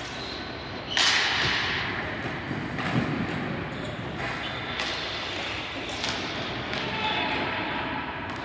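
Ball hockey game play: sticks and ball knocking and thudding, with one loud bang about a second in and smaller knocks and clicks after it.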